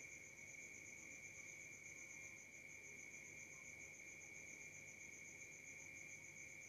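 Faint chirping insects: a fast, even pulsing chirp and a steady high-pitched trill, over a low hum of room noise.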